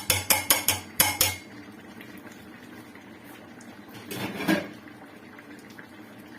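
A metal kitchen utensil clinking against a pot in quick strikes, about four a second, stopping after about a second and a half. A single short clatter follows about four seconds in.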